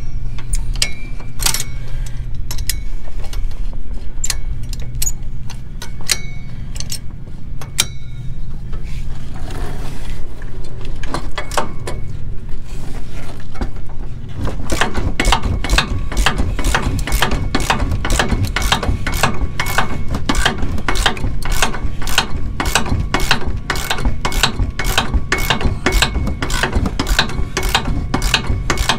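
Ratchet wrench clicking as it backs the nut off the top stud of a Ford F550 front shock absorber, the shock shaft held with locking pliers. Scattered clicks and tool clatter at first, then steady, rapid ratcheting from about halfway through.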